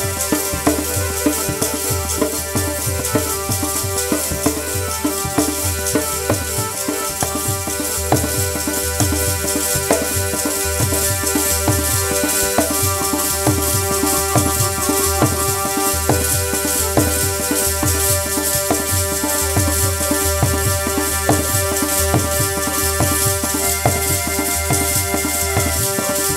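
Instrumental kirtan accompaniment: a harmonium holding steady sustained notes over a continuous tabla rhythm.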